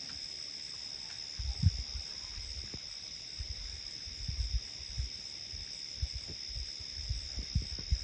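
Crickets chirping in a steady high drone, with occasional soft low bumps underneath.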